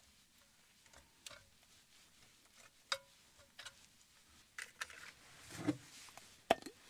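Scattered light clicks and taps of a metal spoon against a cast iron Dutch oven as ricotta filling is spread, the sharpest about three seconds in and near the end, with a short rustle just before the last one.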